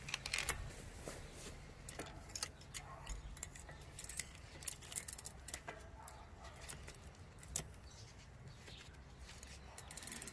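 KMC e10 e-bike chain links clinking and rattling as the chain is handled and fed back onto the rear sprocket and through the derailleur: a string of irregular light metallic clicks.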